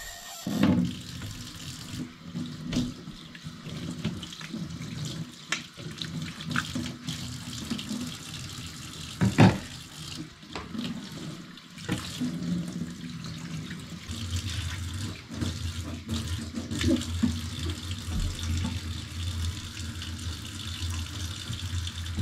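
Tap water running into a stainless steel kitchen sink while dishes are washed by hand, with scattered clinks of a pan and cutlery and one louder clatter about nine seconds in. The water runs heavier from about two-thirds of the way through.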